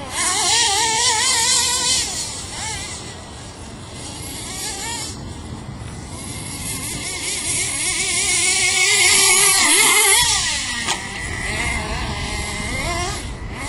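Team Associated RC car's motor revving up and down as the car races over dirt, its pitch rising and falling. It is loudest near the start and again about eight to ten seconds in, with a hiss alongside.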